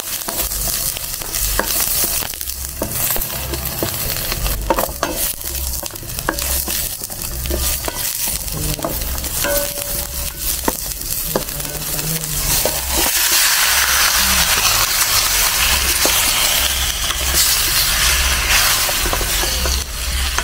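Chopped onion, garlic and ginger sizzling in hot oil in a stainless steel pot, with a spoon stirring and clicking against the pan. About two-thirds of the way through the sizzling gets louder and fuller as pork pieces go into the pot.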